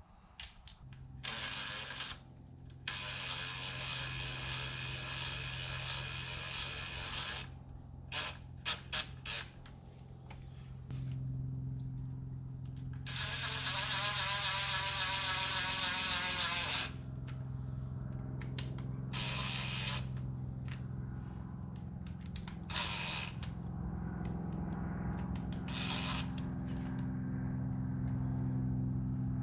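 Cordless drill-driver running in several short bursts, driving small screws that fasten the cable to a remote boat drain plug, its pitch wavering in one burst about halfway through. A few handling clicks and a steady low hum run underneath.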